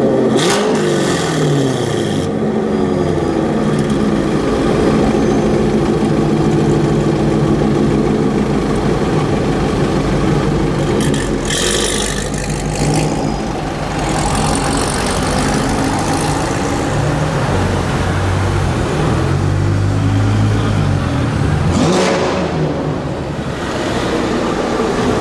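Loud modified Chevrolet Corvette V8 running and revving, its pitch falling away just after the start, then a deep uneven rumble. There are brief louder rushes about halfway through and again near the end.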